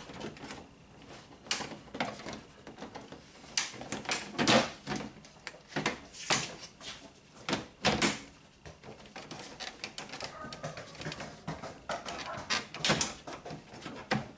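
Stiff plastic radiator-support trim cover being forced into place by hand, giving irregular scrapes, rubs and knocks as it is slid up under the grille.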